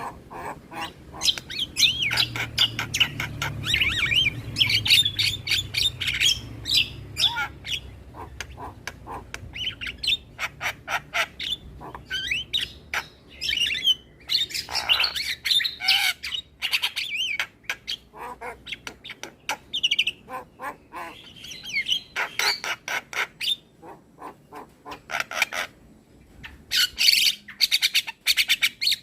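Javan myna (jalak kebo) chattering song: a rapid, unbroken stream of harsh squawks, clicking rattles and short whistled notes.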